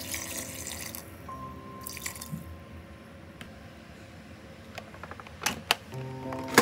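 Water pouring from a plastic jug into a multicooker's inner pot over the stew, stopping about a second in, with a short second splash. Then several sharp clicks near the end as the cooker's lid is closed and locked, over soft background music.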